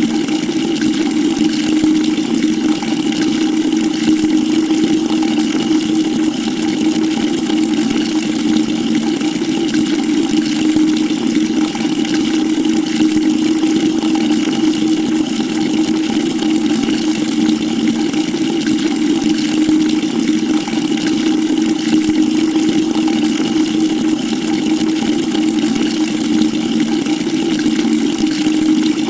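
A stream of water pouring steadily into a bucket, an even rushing splash with a low, steady hum beneath it.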